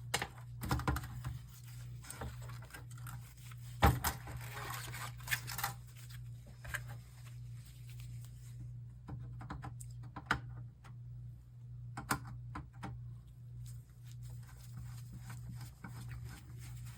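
Scattered small clicks, taps and rattles of cable connectors being pulled from a monitor's main circuit board and the parts being handled, with the sharpest knock about four seconds in, over a steady low hum.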